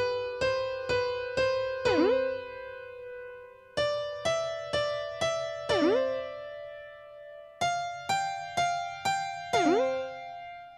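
Electric-piano-like cartoon jingle: three runs of four struck notes, about two a second, each run ending in a quick swooping note that dips and comes back up. Each run starts a step higher in pitch than the one before.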